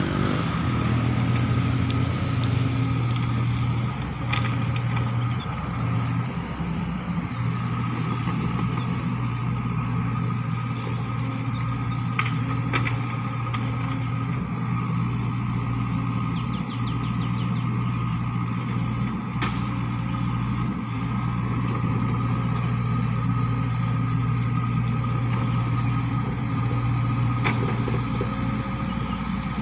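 Sany SY55C mini excavator's diesel engine running steadily as the machine tracks across rough ground, with a few sharp metallic clanks now and then.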